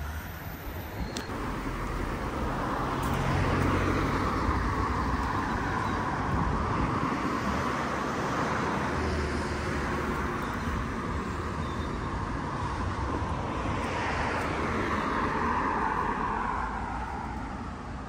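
Road traffic noise: cars passing along the street, one swelling and fading near the end, over a gusty low rumble of wind on the microphone.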